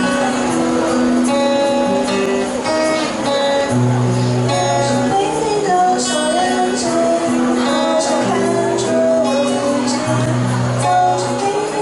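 Live acoustic song: voices singing over a strummed acoustic guitar, with a shaker keeping time.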